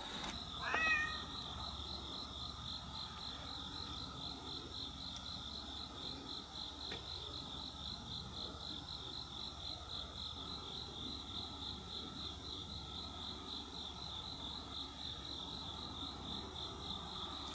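Crickets trilling steadily at night, a high chirring that pulses about three to four times a second. A cat meows once, briefly, about a second in.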